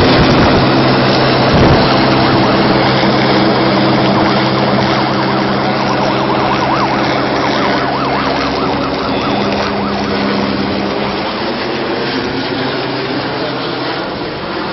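Air ambulance helicopter flying overhead and away, its steady rotor and turbine sound fading gradually. A warbling emergency-vehicle siren sounds faintly in the middle.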